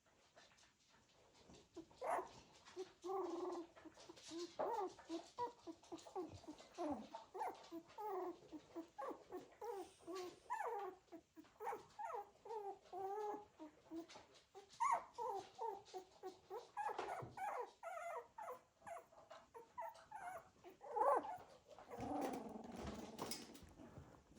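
Cocker spaniel puppies squeaking and whimpering: many short, high cries in quick succession, starting about two seconds in.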